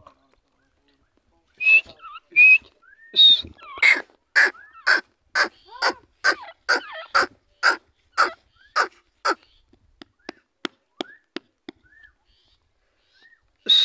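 Grey francolin (teetar) calling: two high notes, then a loud run of sharp, evenly repeated notes about two a second, which trail off into softer, shorter notes.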